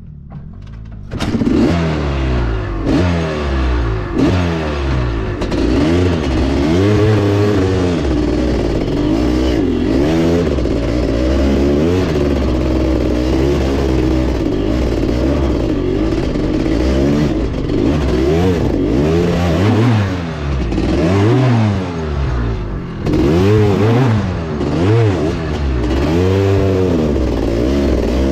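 Honda CR500's two-stroke single-cylinder engine catching after kickstarting about a second in, then revving up and down over and over as it is ridden along the trail.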